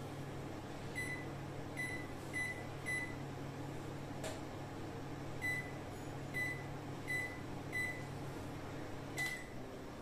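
IFB 23BC4 convection microwave's keypad beeping as its time buttons are pressed: four short beeps, a pause, then four more, and a last beep about nine seconds in as the oven starts. A steady low hum runs under the beeps.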